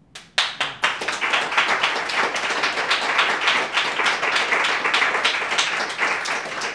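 Audience applauding after a poem: a burst of hand-clapping that starts suddenly and holds steady.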